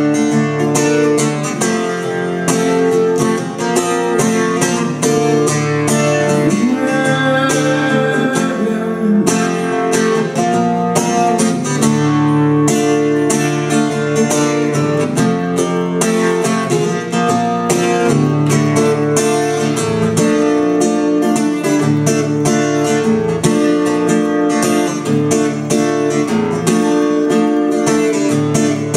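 Solo acoustic-electric guitar playing an instrumental passage, with chords strummed and picked in a steady, quick rhythm.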